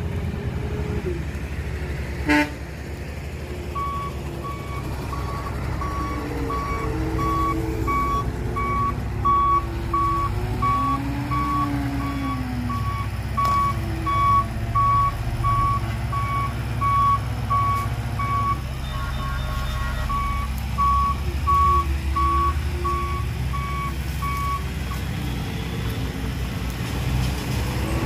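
A heavy vehicle's reversing alarm beeps steadily at one pitch over a low engine rumble. It starts a few seconds in and stops a few seconds before the end. There is a single sharp knock about two seconds in.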